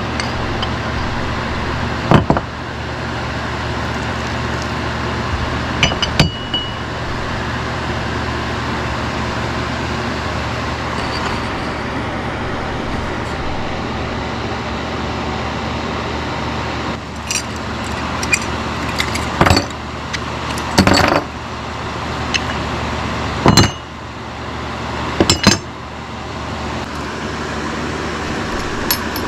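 Sharp metal clinks and knocks as metal bait-mold plates and clamps are handled and opened, most of them in the second half, over a steady low hum.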